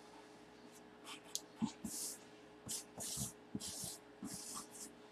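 Marker pen writing on a cardboard box: a series of short scratchy squeaking strokes, mostly from about two seconds in.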